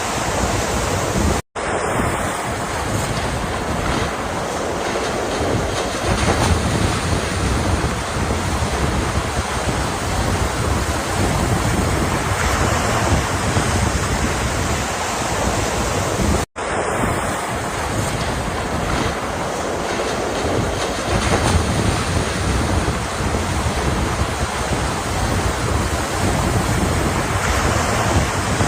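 Ocean surf washing steadily, swelling and easing every few seconds. The sound cuts out for a split second twice, about a second and a half in and again about sixteen seconds in, as where a recording loops.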